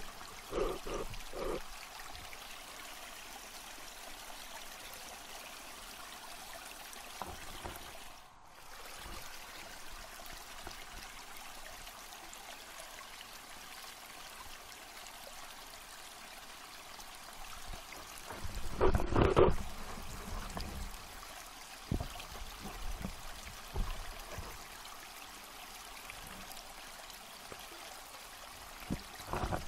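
Steady rushing and trickling of water heard through a submerged camera. A few dull knocks come near the start, a louder scraping burst about two-thirds of the way through, and some smaller knocks after it.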